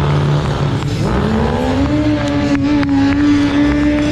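Stunt motorcycle's engine revving up about a second in and then held steady at high revs while the rider holds a wheelie.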